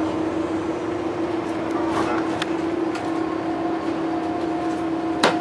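Interior noise of a moving double-decker bus: a steady engine drone with an even hum, a few light rattles, and a sharp knock near the end.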